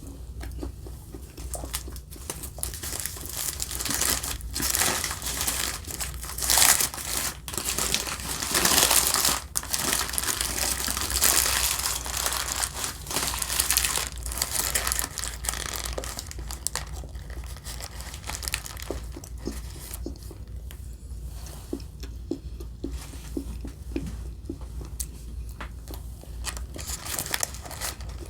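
Paper fast-food wrapping crinkling and tearing as it is handled and opened, densest for the first half, then settling to lighter, scattered crinkles.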